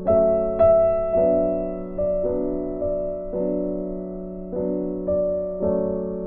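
Background piano music: slow chords and notes struck about one to two times a second, each left to ring and fade.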